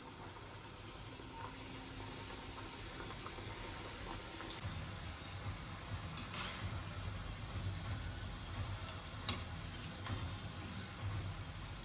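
Samosas deep-frying in hot oil in a kadai: a steady sizzle and bubbling, with a low rumble growing underneath from about halfway. A few sharp clinks of a perforated steel slotted spoon against the pan as the samosas are turned.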